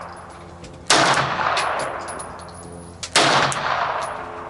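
Two single gunshots about two seconds apart, each with a long echoing tail, during slow-fire target shooting.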